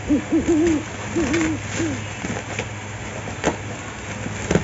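A person's voice humming a short bouncing tune for about two seconds, followed by a few sharp clicks as the cardboard parcel is handled.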